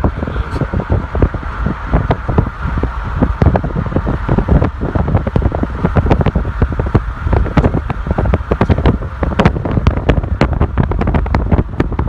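Wind buffeting a phone's microphone: a steady low rumble with rapid, irregular crackling pops throughout.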